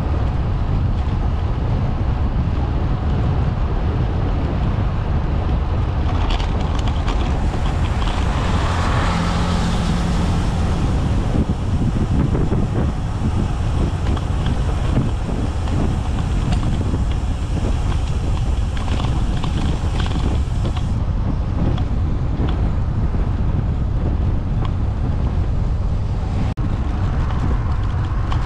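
Wind buffeting the microphone of a camera on a moving bicycle: a loud, steady low rumble, with a few brief rattles partway through.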